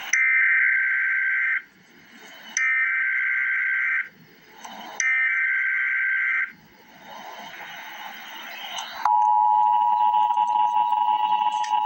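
Emergency Alert System SAME header: three bursts of high, buzzy two-tone data signal, each about a second and a half long with short gaps between them. About nine seconds in, the EAS two-tone attention signal begins, a steady loud dual tone that carries on.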